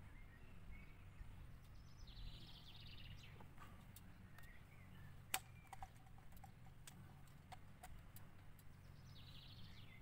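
Faint sharp clicks and taps of a hand tool working against the motorhome's over-cab trim, the loudest about five seconds in. Birds chirp faintly in two short bursts, near the start and near the end.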